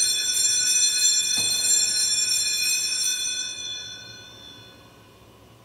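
Altar bells shaken in quick repeated strokes, a cluster of high ringing tones, rung as the host is elevated at the consecration of the Mass. The shaking stops about three seconds in and the ringing fades away.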